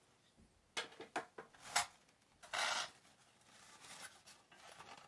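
Tissue paper and polystyrene foam packaging being handled: a few short rustles and scrapes, a longer rub about two and a half seconds in, then faint rustling.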